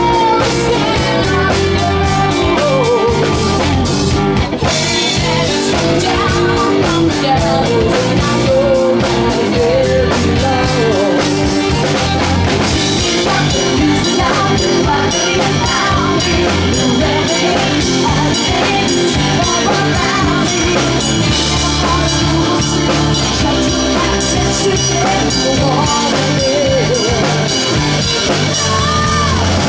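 Live rock band playing an instrumental passage: drums and bass under a wavering lead line.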